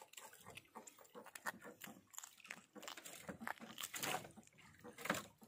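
Faint, irregular rustling and small clicks of hands handling a hand fishing line and its hooks, with a few louder clicks about four and five seconds in.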